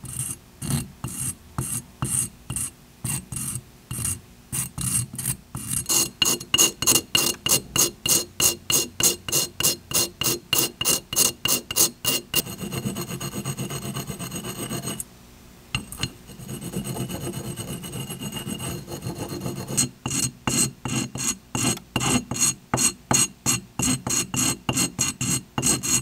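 Hand sanding: a small steel-and-brass holder rubbed back and forth over abrasive paper on a block. It makes a harsh rasping scrape at about two strokes a second, with a high squeal in it, the "most annoying sound in the world". About halfway through the strokes run together into several seconds of continuous rubbing, then the back-and-forth strokes resume.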